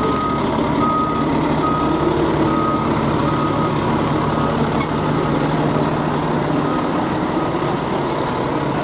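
Fire engine backing up: its reversing alarm beeps a bit more than once a second over the steady running of its diesel engine. The beeps fade out about four seconds in and come back faintly near the end.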